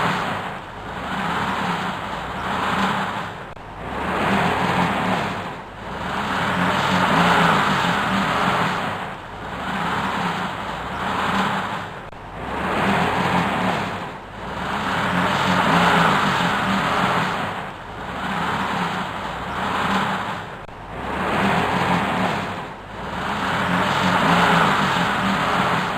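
A vehicle engine revved up and down over and over, swelling and falling back about every two seconds, like a vehicle stuck in mud spinning its wheels.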